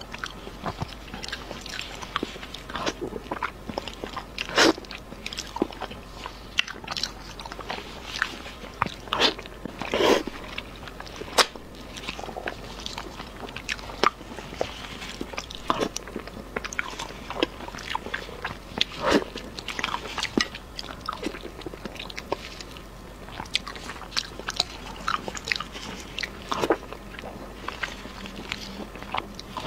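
Close-miked eating sounds of a person biting and chewing sauce-coated braised meat, in irregular smacks and clicks.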